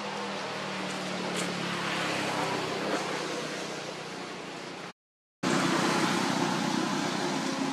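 Steady rushing outdoor background noise with a low hum underneath. It cuts out completely for about half a second around five seconds in, then comes back louder.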